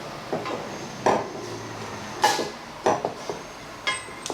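Kitchen items being handled and set down on a counter: about five separate sharp knocks and clatters of things like dishes or containers.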